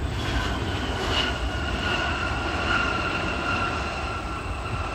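Jet airliner's engines whining over a low rumble, the two-note whine sinking slowly in pitch as the aircraft passes.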